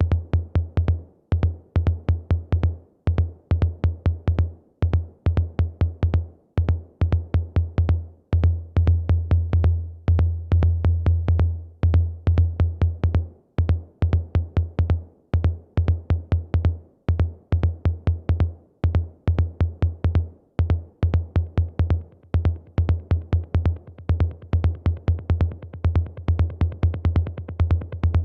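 Roland TR-8 drum machine playing a techno beat: a deep, heavy kick and bass under a fast stream of sharp hi-hat clicks. The pattern drops out briefly now and then, and a brighter hiss builds up in the upper hats toward the end.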